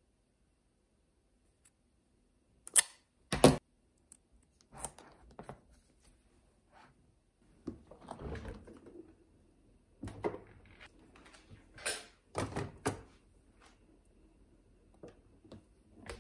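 Scattered thunks and clicks of objects being handled and set down, the loudest a pair of sharp knocks about three seconds in, with more light knocks later on.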